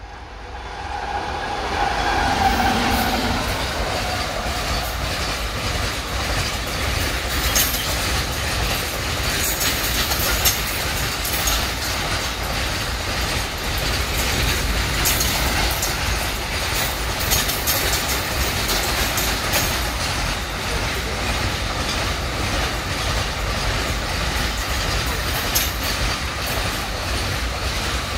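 Container freight train behind an Indian Railways WAG-9 electric locomotive passing close by. A short horn note sounds about two seconds in as the rumble builds. Then comes the steady rumble of the container wagons rolling past, with scattered clicks of wheels over the rail joints.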